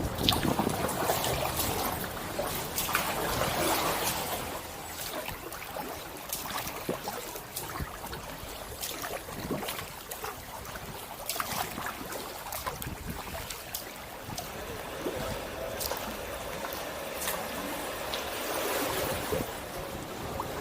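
Kayak paddle dipping into canal water: small splashes and drips from the blades, with many quick clicking drops and a few stronger swells of stroke noise.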